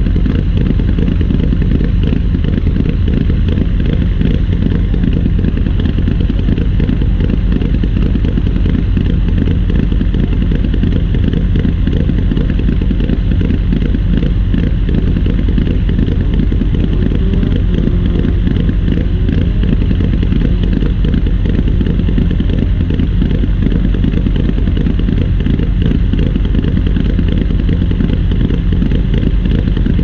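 Rally car engine idling steadily at close range, a low, fast, even pulsing with no revs.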